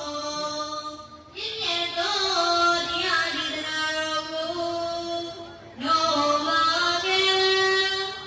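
A woman singing a slow melodic song with long held notes, in phrases that break off about a second in and again near six seconds.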